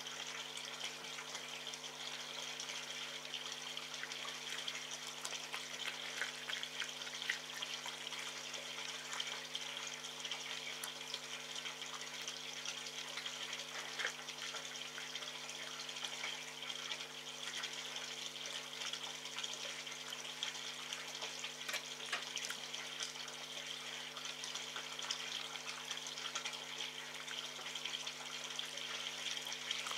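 A red fox chewing and picking meat from a metal tray: scattered small clicks and crunches over a steady hiss and low hum.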